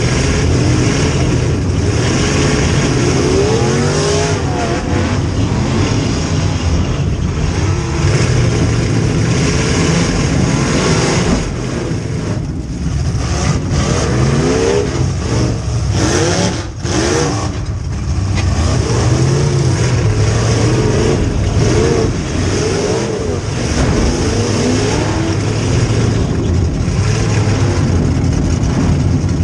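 Demolition derby car's rear-mounted V8 running loud inside the stripped cabin, its pitch rising and falling as it revs up and eases off, with brief lifts off the throttle about twelve and sixteen seconds in.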